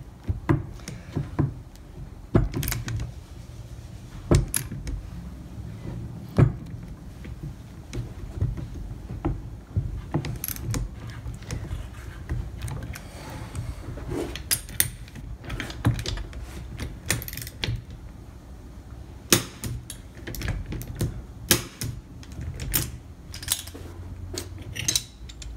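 Torque wrench ratchet clicking, with metal tools clinking and knocking in scattered, irregular clicks, as a 19 mm socket tightens the clutch nut of a TM KZ kart engine to 80 newton metres. A low steady hum sits underneath.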